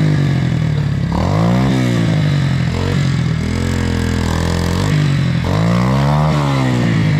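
Small dirt bike's engine revved hard in several rising and falling surges, with its rear wheel spinning in the water and mud as it tries to climb out of the river bank.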